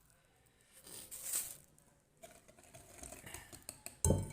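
Kitchen handling sounds while vanilla goes into the batter: a short rustle about a second in, a few faint light clicks, then a sharp knock near the end, the loudest sound.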